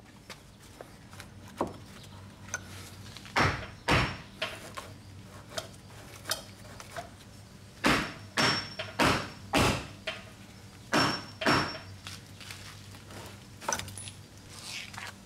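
Heavy knocks on rotten wood wall framing as a stud is kicked and knocked loose at its foot: a dozen or so blows in uneven clusters, the loudest a run of four about half a second apart midway, some leaving a brief metallic ring.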